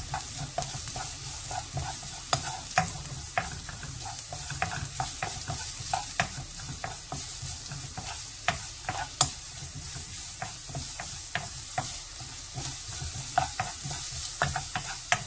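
Julienned carrots frying in oil in a nonstick pan, a steady sizzle, while a wooden spatula stirs and tosses them, knocking and scraping against the pan in quick, irregular clicks.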